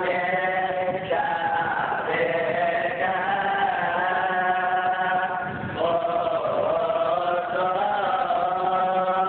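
Liturgical church chant by a group of voices, long held notes that shift to a new pitch every second or few seconds.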